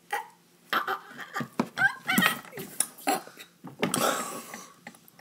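A boy's wordless, disgusted noises from a spoonful of foul-tasting food: a run of short groans and gagging sounds, then a long breathy blast about four seconds in.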